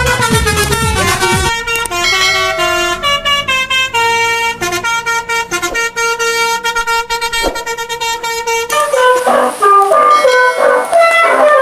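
A bus's basuri telolet horn playing a melody, note after note, with an engine rumbling underneath at the start. About two-thirds of the way in the sound changes as a second horn tune takes over, with a hiss above it.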